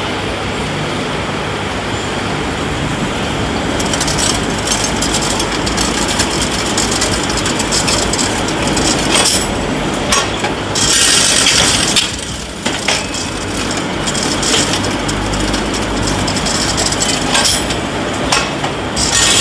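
Welding-rod production machinery running with a steady, dense mechanical clatter and low hum, and a brighter hissing stretch about eleven seconds in.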